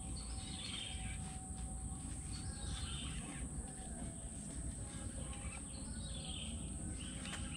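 Riverside outdoor ambience: a steady low background rumble with a bird calling several times, each call a short phrase a couple of seconds apart.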